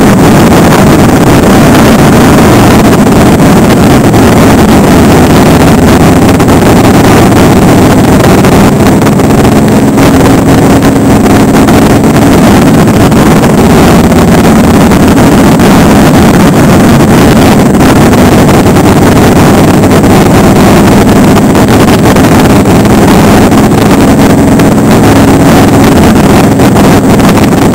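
Motorcycle engine running at a steady highway cruising speed under heavy wind buffeting on the microphone. Loud and constant throughout.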